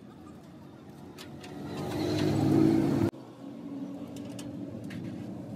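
A motor vehicle engine runs nearby, growing louder for about two seconds. It cuts off suddenly about three seconds in, and a quieter, steady engine hum follows.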